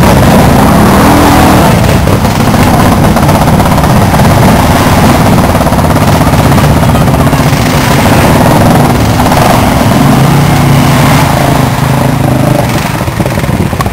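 Several ATV engines running loudly and revving up and down as the quads drive through deep muddy water.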